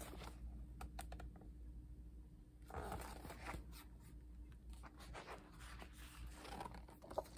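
Faint rustling and sliding of glossy photobook pages being handled and turned, in short irregular scrapes, with a sharp tap near the end.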